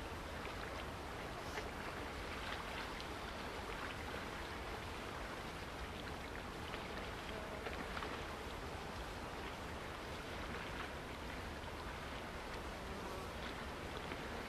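Steady outdoor hiss of wind and choppy water, with faint light ticks scattered through it.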